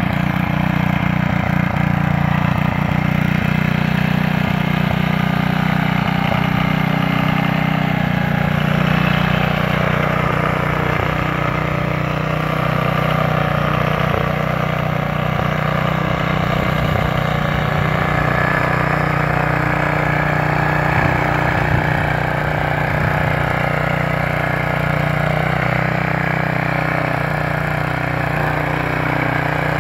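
1970s Row Buster walk-behind tiller's small gas engine running steadily under load as the tiller works through garden soil to form a row.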